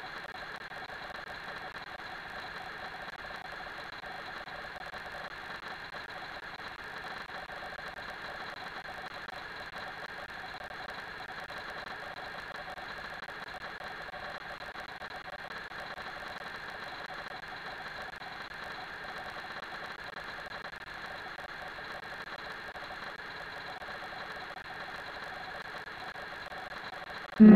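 A steady mechanical hum with a few faint held tones, even and unchanging. Loud organ music cuts in abruptly at the very end.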